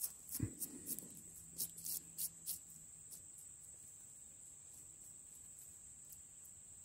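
Small bristle brush scratching soil off a dug-up cordyceps specimen, a run of quick light strokes in the first two and a half seconds, then stopping. Under it, a steady high-pitched insect drone.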